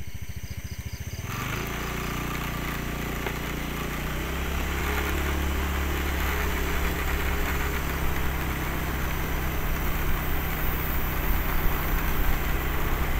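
A vehicle's engine pulsing at idle for about the first second, then running steadily as it drives along, with road and wind noise that slowly grows louder as it gathers speed.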